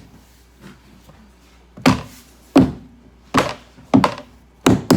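A series of about six dull thumps, roughly one every half to two-thirds of a second, starting about two seconds in: a piece of stick-and-peel vinyl flooring being knocked down into place on the floor.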